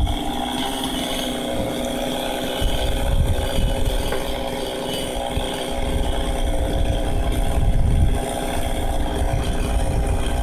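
Two-stroke chainsaw idling steadily between cuts, with an uneven low rumble that comes and goes underneath.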